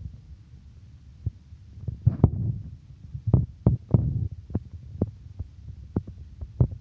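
Low, steady rumble inside an airliner's cabin on final approach, with irregular dull thumps and knocks, one every half-second to a second.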